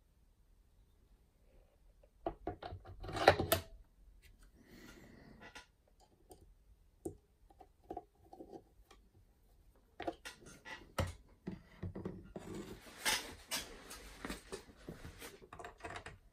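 Steel tooling being handled and fitted on a Schaublin 70 lathe's turret carriage, with the lathe not running: metal-on-metal clicks and knocks, a louder clatter about three seconds in, and denser clicking and scraping in the second half.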